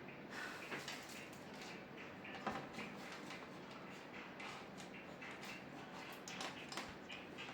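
Faint scattered clicks and light scraping of small parts being handled, as test probes and a jumper wire are worked on a TV backlight cable connector during a continuity check.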